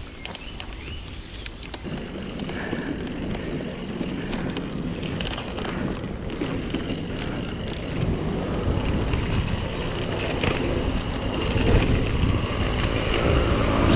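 Mountain bike being ridden: wind rush and tyre rumble on the camera microphone, growing louder toward the end, with a thin steady high whine that drops out about two seconds in and returns about eight seconds in.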